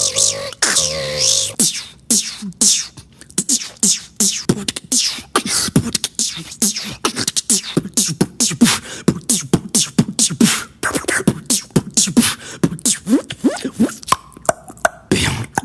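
A beatboxer making vocal sound effects with the mouth: first a warbling, wavering tone, then a long fast run of sharp clicks and short falling pitch sweeps, several a second.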